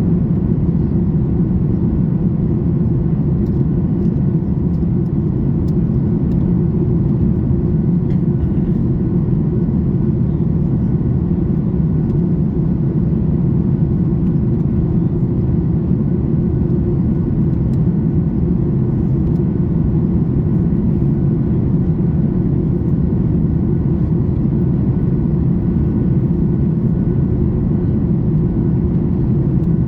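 Steady low drone inside the cabin of a Boeing 737 MAX 8 airliner in descent: airflow over the fuselage and its CFM LEAP-1B engines, heard from a seat by the wing, with faint steady higher tones above it.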